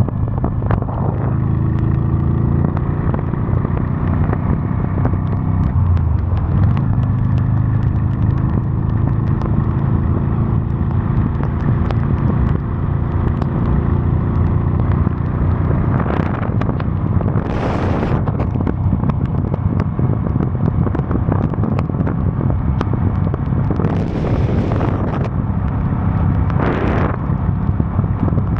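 Honda Steed V-twin motorcycle engine running steadily under way, with road and wind noise. Three swells of hiss rise and fall, about halfway through and near the end.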